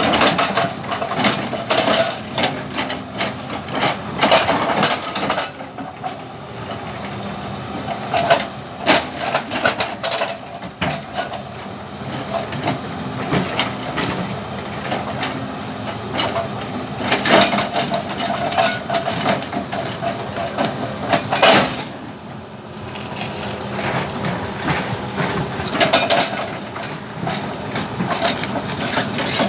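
Jackhammer hammering into a large stone in repeated bursts of rapid blows, with a steady mechanical running noise between bursts.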